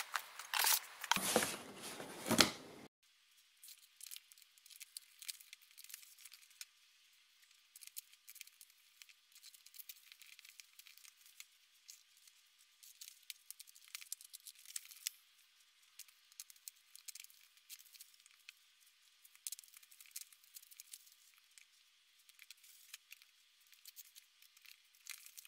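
Plastic-wrapped cardboard pastel boxes being handled and unwrapped, sped up: a short spell of louder rustling and knocking of packaging, then after about three seconds only a faint, thin stream of quick crackles and ticks.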